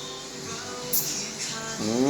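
Background music with plucked acoustic guitar.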